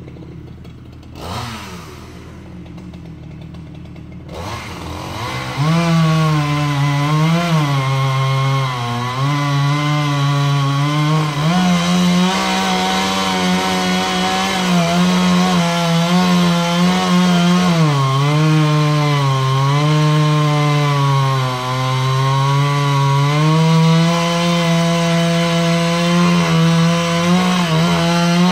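Two-stroke chainsaw, quieter for the first few seconds, then opened up to full throttle about five seconds in and run hard through wood, its pitch dipping and recovering as the chain bites in.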